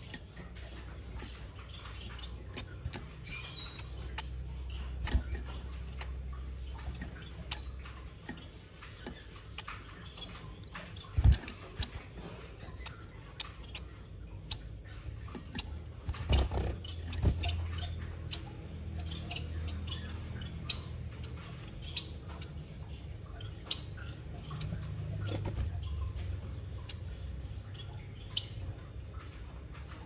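Small cage finches at the nest giving short, high chirps again and again, with scattered sharp taps and knocks as the birds hop and land on the plastic nest box; a louder knock comes about 11 seconds in and two more around 16 to 17 seconds.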